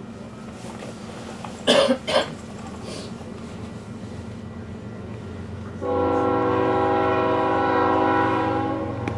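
Locomotive air horn of a CN intermodal freight train sounding one long chord of several tones, starting about six seconds in and tapering off near the end, over a steady low rumble. Two short, loud noisy bursts come about two seconds in.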